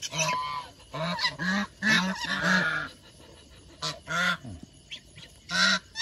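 Domestic geese honking, many short overlapping calls through the first three seconds, a brief lull, then a few more calls.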